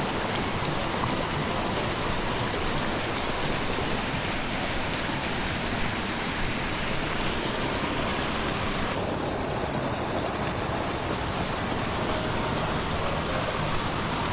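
Mountain stream's water rushing steadily. The rush turns duller about nine seconds in.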